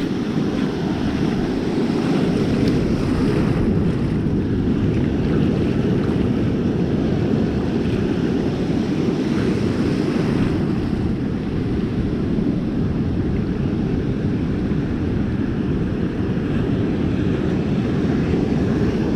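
Ocean surf washing and breaking in the shallows, mixed with a steady low rumble of wind buffeting the microphone.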